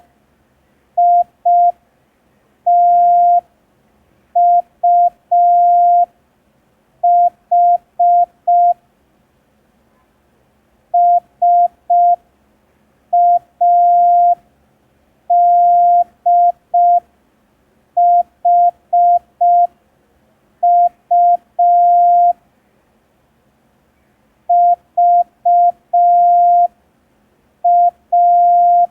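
Morse code practice tone keyed at very slow speed, one steady pitch in short dots and longer dashes with pauses between letters. It sends the random letters I T U H S A D H U V A.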